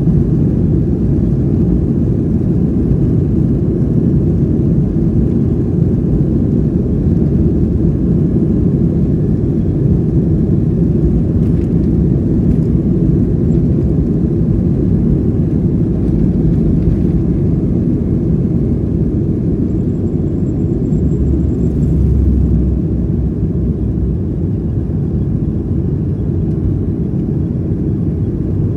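Jet airliner's engines at takeoff thrust with runway rumble, heard inside the cabin during the takeoff roll. A heavier low thump comes a little over twenty seconds in, then the rumble eases slightly as the plane lifts off.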